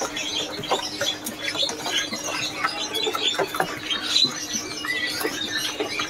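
Many caged small birds chirping and twittering at once, a dense overlapping run of short high chirps and squeaks, over a steady low hum.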